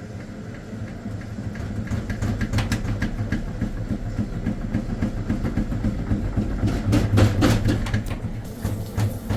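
Samsung washer-dryer in its spin cycle, shaking hard: a low drum rumble with rapid, even knocking that grows louder over the first few seconds as the spin speeds up. Shaking like this points to worn shock absorbers or an unlevel floor.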